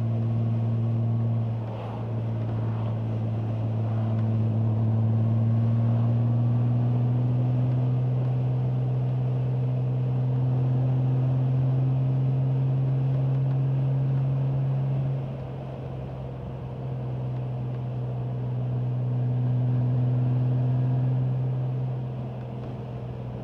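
Honda Gold Wing GL1500 flat-six engine running at steady cruising speed, a deep even hum over wind and road noise. Its pitch rises slowly, and it drops in loudness briefly about two seconds in, for a couple of seconds around the middle, and again near the end.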